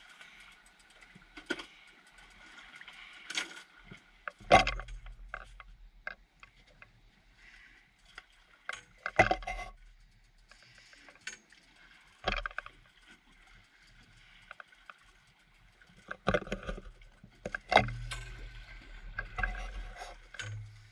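Small fishing boat's hull slapping on choppy waves: irregular loud thumps and splashes, several over a few seconds, over a steady rush of water.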